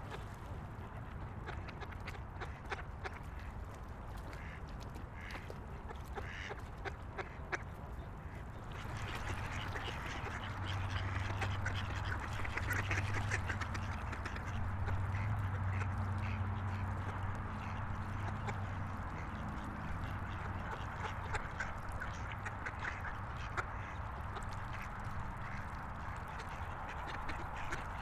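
Several ducks quacking at a lakeshore, with scattered calls from other birds. About a third of the way in, the background grows denser and a low steady hum joins it for a while.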